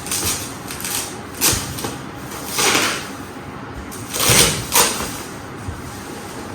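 Packaging of an AV receiver handled as it is unboxed: a series of rustling, scraping swishes, the loudest about two and a half and four seconds in.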